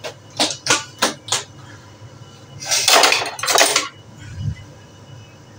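Kitchen utensil and dish handling during food preparation: a quick run of about five short clinks or scrapes in the first second and a half, then two longer, louder noisy scraping sounds about three seconds in.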